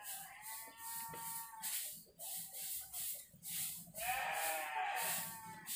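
Two long bleats from a farm animal, each a second or more. The second starts about four seconds in with a rising pitch.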